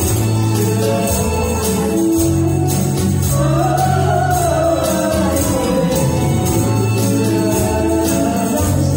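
A woman singing a pop ballad into a microphone over an amplified karaoke backing track, with a group keeping time on small hand tambourines and shakers.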